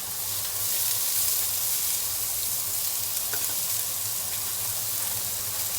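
Ginger frying in hot oil in a pan, a steady sizzle with a few faint pops.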